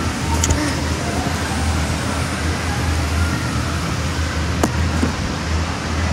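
Steady low drone of the electric air blowers that keep the inflatables pumped up, with a single sharp click about four and a half seconds in.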